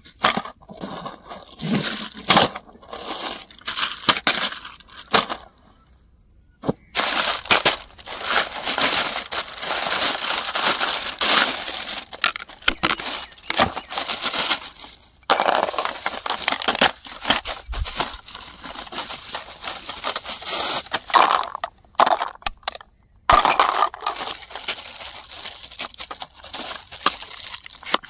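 Clear plastic bags and bubble wrap crinkling and rustling as they are handled and pulled open, broken by a few short silences.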